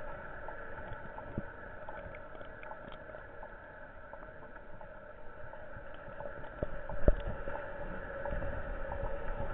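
Aquarium aeration heard with the microphone under water: a steady hum with bubbling, scattered small clicks, and a single knock about seven seconds in.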